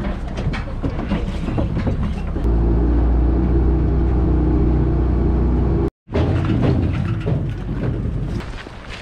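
Footsteps and wind on a small aluminium boat's deck, then the boat's engine running steadily under way for a few seconds, which cuts off suddenly about six seconds in; after that, footsteps on an aluminium gangway.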